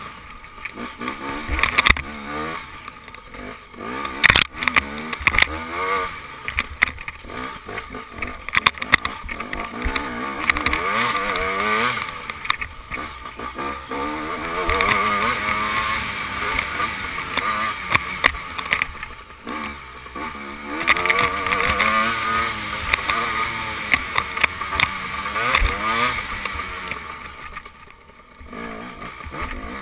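KTM dirt bike engine revving up and falling back again and again as it is ridden hard, heard from the rider's helmet camera, with many short knocks and rattles from the rough ground.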